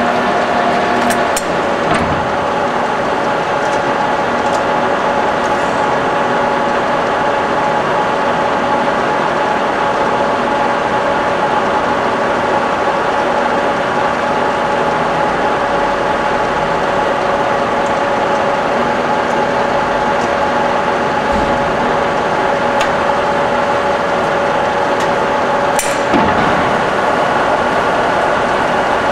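Warner & Swasey turret lathe running under power with its spindle turning, a steady mechanical whine with constant tones from the gear-driven headstock and drive motor. A few sharp clicks come about a second in, and another knock near the end.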